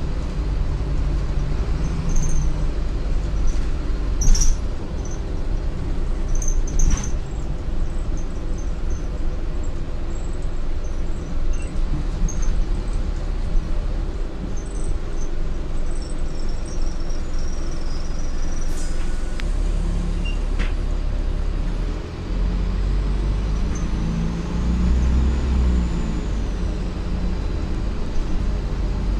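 Optare Solo M950 single-decker bus on the move, heard from inside the passenger saloon: steady diesel engine and road noise with a deep low hum, and short squeaks and rattles from the interior fittings over the first several seconds. The engine note dips briefly about three-quarters of the way through, then pulls again.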